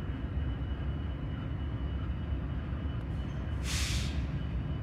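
Diesel locomotives idling, a steady low rumble, with one short hiss of released air about three and a half seconds in.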